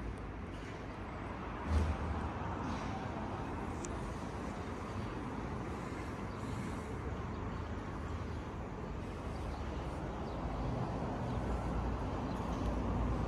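Steady low rumble of distant city traffic, with one brief low thump about two seconds in.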